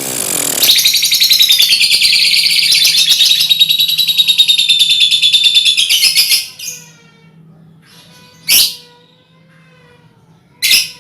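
Lovebirds chattering in a fast, continuous high trill, the long "ngekek" call, for about five and a half seconds, then two short, sharp single calls near the end.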